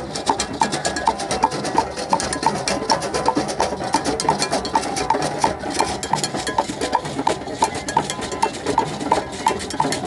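Drum circle of hand drums, djembes and congas, playing a fast, dense groove together, with a djembe being struck close by. A steady high knock sounds about three times a second above the drumming.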